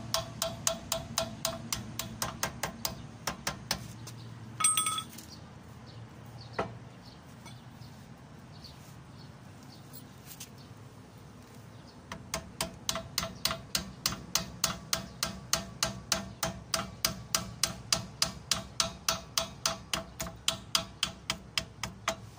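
Light, rapid hammer taps on the steel steering knuckle of an Isuzu Elf truck while fitting a king pin kit, about four ringing strikes a second. The tapping stops after a few seconds, one sharp metallic clink rings out, and the rapid tapping resumes for the second half.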